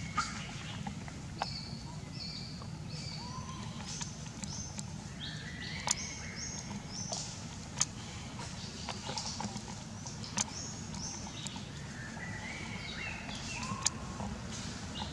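Wild birds singing: series of short, high chirps repeating throughout, with a few sharp single clicks now and then and a steady low hum underneath.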